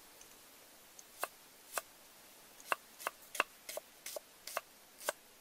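Cleaver chopping on a round wooden cutting board: about a dozen sharp, unevenly spaced knocks, starting about a second in.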